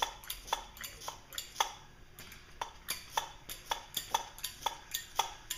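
Brass hand pressure pump being stroked to pressurize an outboard gearcase for a leak test: a steady run of sharp metallic clicks, two or three a second, one with each stroke.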